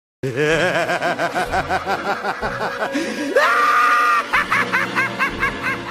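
Maniacal Joker-style cackling laugh: quick bursts of 'ha-ha' about six a second, a long high held cry in the middle, then more rapid laughter.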